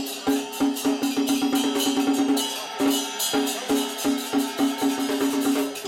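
Traditional temple gong-and-drum percussion playing. A pitched beat is struck in fast runs, with cymbals clashing over it.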